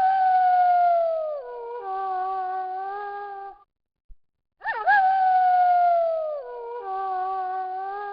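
Wolf howling: a long howl that swoops up at the start, slides down in pitch and then holds a steady lower note for a couple of seconds. The same howl repeats about four and a half seconds in.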